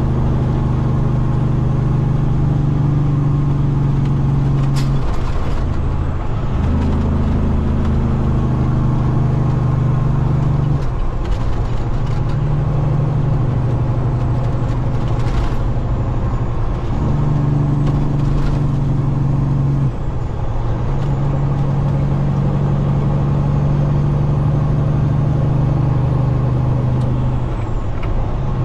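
Semi truck's diesel engine droning while driving on the road. The drone breaks off and comes back at a different pitch several times, as the truck shifts gears.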